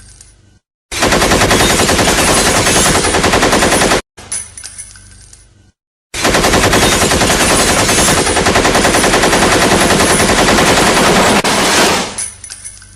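AK-47 assault rifle firing on full automatic in two long bursts, the first about three seconds, the second about five. Each burst stops abruptly and trails off in a decaying tail with light metallic clinks.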